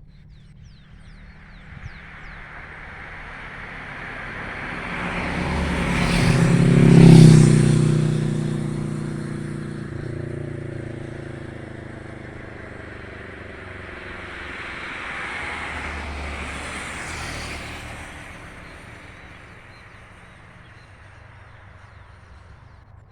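A motor vehicle passing by, building to its loudest about seven seconds in and then fading with its engine note dropping in pitch. A second, fainter vehicle passes around sixteen seconds in.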